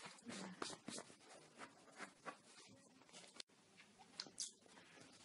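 Near silence, with faint, short scratching and rustling sounds in a small room.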